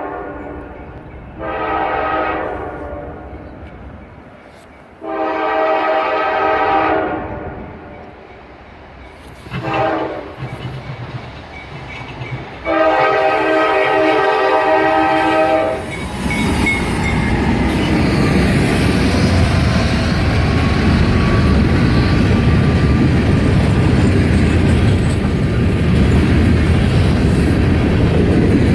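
Norfolk Southern freight locomotive horn sounding a series of long blasts with one short blast before the last long one, the grade-crossing signal as the train approaches. About halfway through the horn stops and the locomotives pass close by, a loud steady rumble of engines and wheels rolling on the rails.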